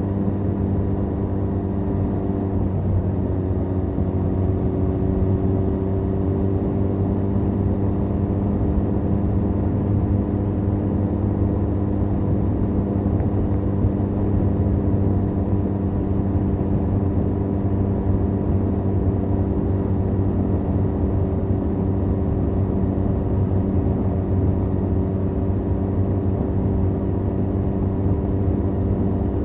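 Benelli 502C's parallel-twin engine running through its stock exhaust, recorded from the rider's seat while cruising at steady revs. The pitch dips briefly about three seconds in, then holds steady again.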